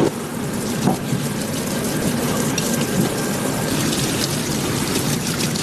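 Steady mechanical hum of a restaurant kitchen, with a few light clicks.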